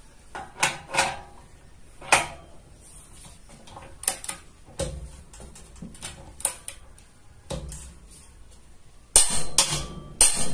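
Click-type torque wrench set to 375 Nm, tightening a nut: scattered sharp metallic clicks and clinks from the ratchet head and the socket on the nut, with a louder run of clicks near the end.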